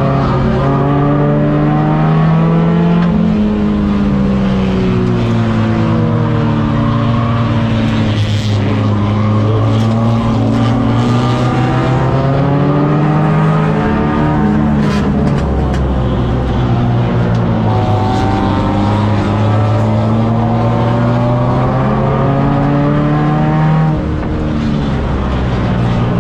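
Tuner race car's engine heard from inside the cabin, running hard. Its pitch climbs and falls again and again as the car accelerates and lifts around the oval. A few short clicks sound near the middle.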